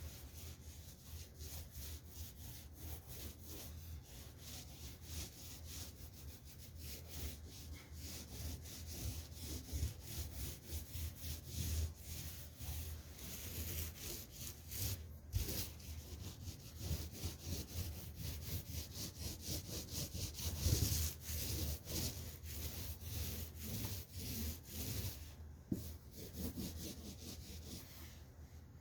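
Paint roller being rolled back and forth over a drywall wall, a repeated rubbing of the nap on the painted surface.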